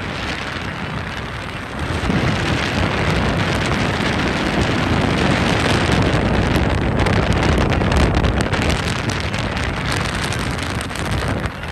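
Wind rushing over a moving microphone, a steady noise with low buffeting rumble that gets louder about two seconds in.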